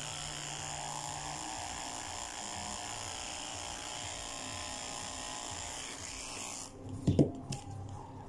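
Corded electric dog clippers running with a steady buzz as they trim the fur on a Maltese terrier's face and ear, then switched off about six and a half seconds in. One short loud sound follows straight after.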